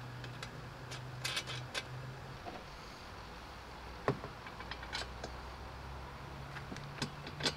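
Scattered small metal clicks and taps as a washer and nut are fitted by hand onto a bolt through the metal frame of a Gorilla Carts poly dump cart, with one sharper click about four seconds in. A low steady hum runs underneath, growing stronger in the second half.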